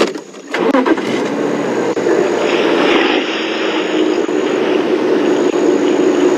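Safari game-drive vehicle driving, its engine running steadily with road noise; the sound comes in loudly about half a second in after a few light clicks.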